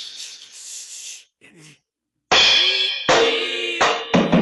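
A harsh, hissy cymbal sound that is busted up, fading out in the first second. After a short pause comes a loud run of drum-kit hits with cymbal crashes, about five strikes.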